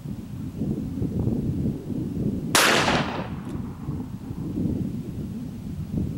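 A single .38 Special shot from a 1961 Smith & Wesson Model 10-3 revolver, fired single action, about two and a half seconds in, with a short ringing tail of reverberation after it.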